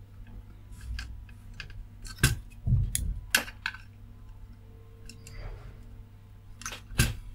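Sharp clicks and taps of a soldering iron and a pointed metal pry tool against a diode lead on a circuit board as the lead is levered up out of its hole, the loudest about two seconds in, around three seconds and near the end. A low steady hum runs underneath.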